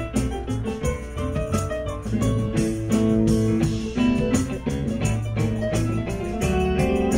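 Live rock band playing an instrumental passage between vocal lines: guitar and keyboards over a bass line and a steady drum beat.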